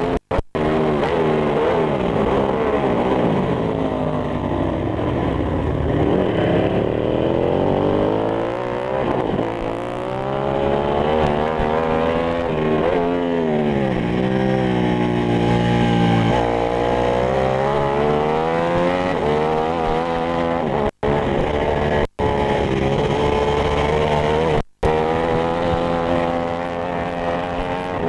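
On-board sound of a Ducati 995 V-twin superbike engine at racing speed, its revs climbing and dropping again and again through the gear changes. The sound cuts out for an instant a few times near the end.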